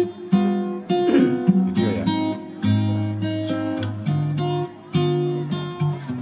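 Background music played on acoustic guitar: a run of plucked notes, each dying away.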